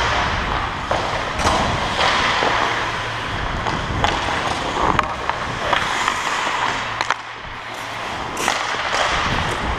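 Ice hockey skates scraping and carving on the ice, with the rush of skating on a helmet-mounted camera and sharp clacks of sticks and puck now and then.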